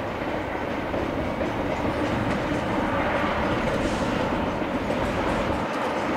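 A train moving along the track, its wheels rumbling over the rails, slowly growing louder.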